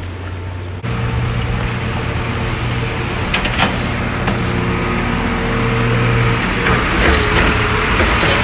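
A motor vehicle's engine running close by, a steady low hum that comes in suddenly about a second in, over street noise, with a few short clicks.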